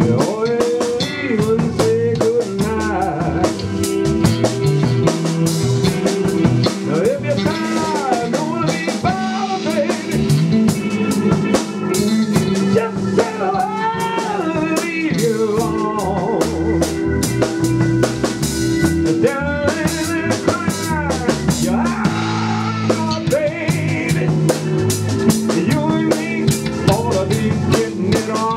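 A live band playing an instrumental break: drum kit keeping a steady beat under electric bass, with a lead melody line that bends its notes up and down.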